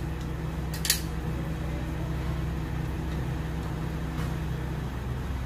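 A sharp click about a second in and a fainter one later as the metal stand of an artificial Christmas tree is fastened with its small lock, over a steady low hum.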